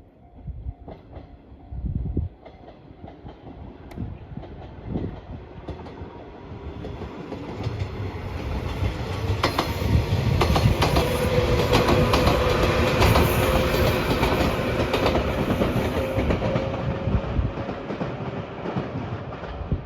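Train passing close by, its wheels clacking over the rail joints: the sound grows from about six seconds in, is loudest around the middle, then slowly fades.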